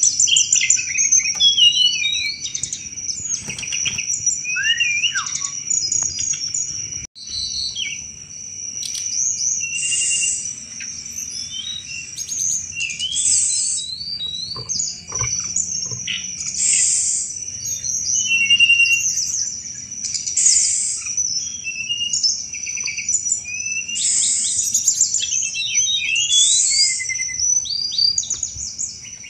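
Tledekan gunung songbird singing hard: a dense, varied stream of quick chirps, short trills and harsh chattering notes over a steady high whine. The sound drops out for a moment about seven seconds in.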